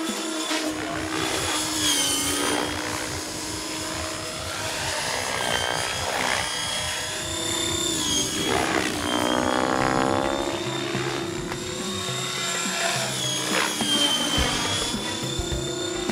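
Large radio-controlled 3D helicopter flying aerobatics: the whine of its rotors and drive swings up and down in pitch several times as it swoops and flips. Background music plays throughout.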